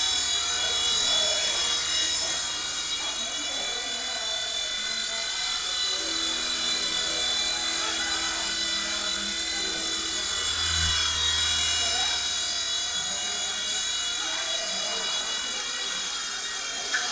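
WLtoys V911 micro RC helicopter's small electric motor and rotor running with a steady high-pitched whine.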